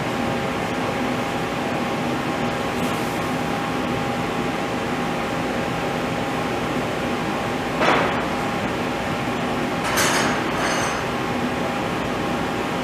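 Romi Bridgeport EZ Path CNC lathe powered up and running with a steady hum and a faint tone, as its carriage traverses along the bed. Two short louder noises come about eight and ten seconds in.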